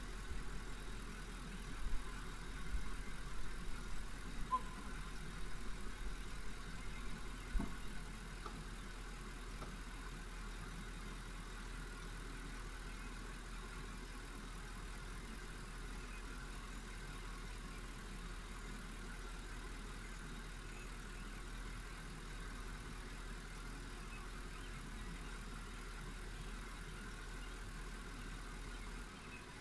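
Ford F-150 pickup engine idling steadily, with a few clicks and knocks during the first eight seconds or so.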